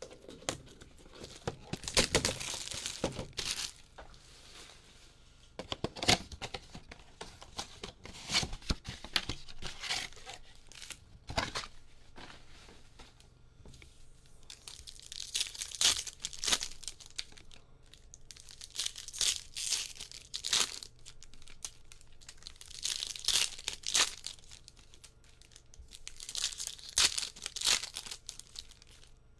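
Foil trading-card pack wrappers from a Topps Chrome Update mega box being torn open and crinkled, in repeated bursts of crackling every few seconds with a few sharp clicks.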